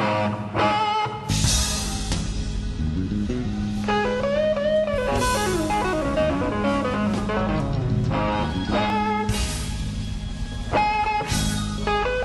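Background music: a blues-rock track with a guitar melody bending up and down between notes over a held bass line and drums with recurring cymbal crashes.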